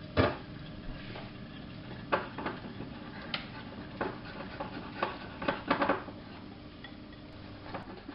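A utensil knocking and clinking against a mixing bowl while egg yolks and icing sugar are stirred together, in irregular taps, the loudest just after the start.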